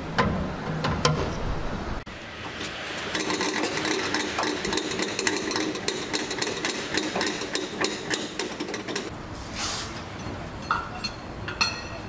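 Underslung spare-wheel winch of a Toyota pickup being cranked with the jack-handle extension, a rapid mechanical clicking for about seven seconds as the spare wheel is lowered. A couple of sharp metal clinks follow near the end as the wheel is freed from its bracket.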